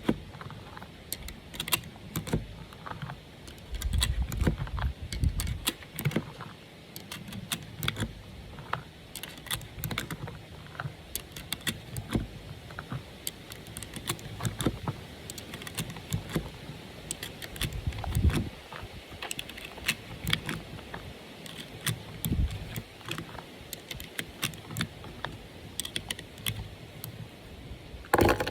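Small metallic clicks and rattles, irregular and many, of 9mm cartridges and a pistol magazine being handled and loaded, with a few dull bumps of handling in between.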